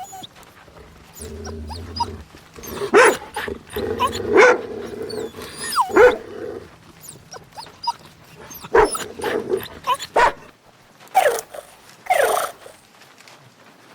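A dog making a series of short whines and yelps, with some growling, in scattered bursts with short pauses between them.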